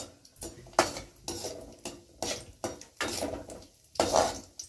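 Slotted steel spoon scraping and knocking against an aluminium kadai, about two strokes a second, as cashews are stirred while they fry golden in ghee.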